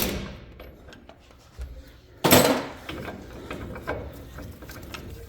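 Metal clanks and scraping from a C-frame ball joint press being worked while pressing a new ball joint into a control arm, with a few light clicks and one louder clank about two seconds in.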